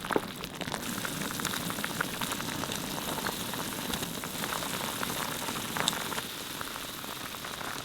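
Radish soup cooking in a pot: a steady crackling hiss with scattered small pops.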